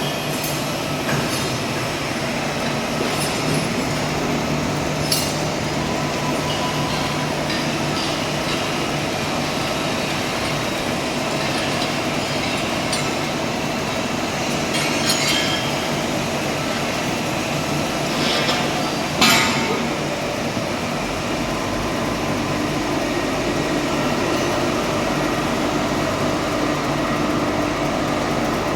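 Steady machinery drone in a tug boat's engine room, with a few sharp metallic clinks of steel tools and parts. A deeper rumble joins about two-thirds of the way through.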